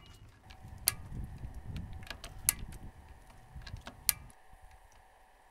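A screwdriver-style torque wrench clicking as it cams over on scope ring cap screws: sharp single clicks about every second and a half, each one a screw reaching its set torque. Low handling rumble underneath, fading out near the end.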